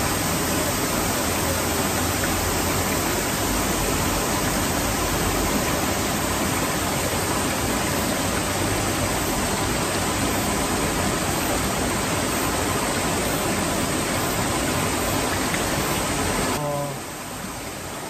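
Steady rushing of a valley stream, an even, unchanging water noise that drops to a quieter level near the end.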